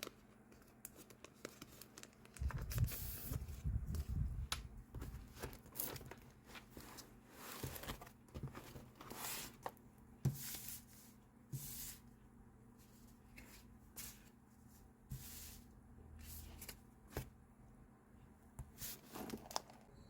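Close-up paper crafting sounds: paper, stickers and tape being torn, peeled and crinkled in irregular short strokes, with small taps. There is a louder stretch of handling with low thumps from about two and a half to five seconds in.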